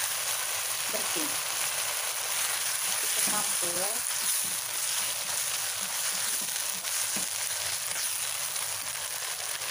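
Shredded chicken with chili paste and green chilies sizzling in a hot oiled wok, with a steady frying hiss, while a spatula stirs and scrapes it around the pan.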